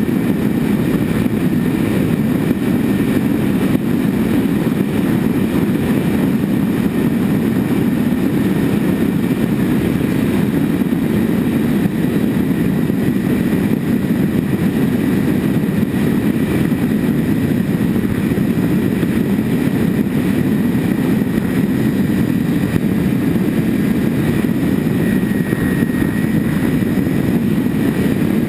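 Twin-engine RC model plane's motors and propellers running steadily in cruise, heard from a GoPro mounted on the aircraft. A steady rushing drone of prop wash and air over the camera, with a faint steady whine above it.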